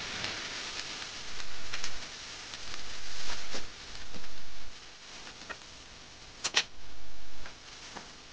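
Spatula tossing and scraping chowmein noodles in a non-stick wok: repeated scraping swishes lasting about a second each, with light clicks of the spatula against the pan and a sharp double knock about two-thirds of the way through.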